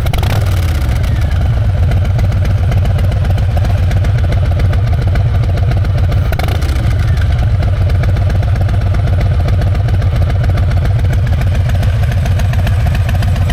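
Harley-Davidson Sport Glide V-twin in Stage 1 tune idling steadily.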